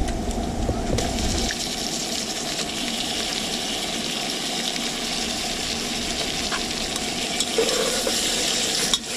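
Chopped pork sizzling in hot cooking oil with garlic, onion and ginger in an aluminium pot, the early stage of sautéing for ginataang laing. The sizzle rises about a second in as the pork goes in, and holds steady while a ladle stirs it near the end.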